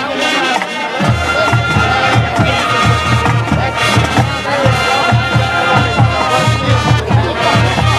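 High school marching band playing: brass horns hold chords over a steady drum beat, with low drums coming in about a second in.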